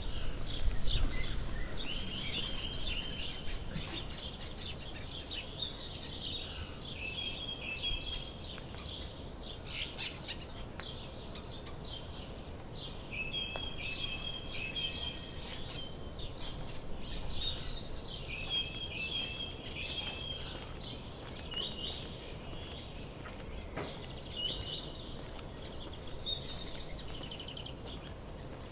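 Songbirds singing, with short chirping and trilling phrases repeated throughout over a steady low outdoor background. There is a brief low rumble in the first couple of seconds.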